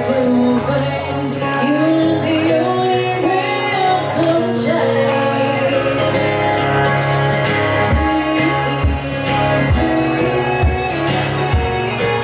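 Live amplified music: a woman singing while strumming an acoustic guitar through a PA. From about eight seconds in, a low thump lands on each beat, roughly once a second.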